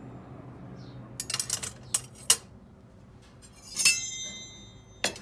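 Metal kitchen utensils clinking against each other and a ceramic utensil crock as they are set into it. There is a quick patter of light clicks a little over a second in, two sharp clinks around two seconds, and a loud clink near four seconds that rings on briefly, then one more sharp click near the end.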